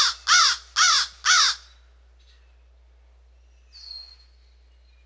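A crow cawing four times in quick, even succession, harsh and loud. About four seconds in, another bird gives a faint, thin whistled call in the distance.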